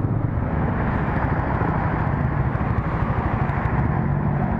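Steady wind rush over the microphone while riding, with a Yamaha XMAX 300 scooter's single-cylinder engine running underneath at a steady speed.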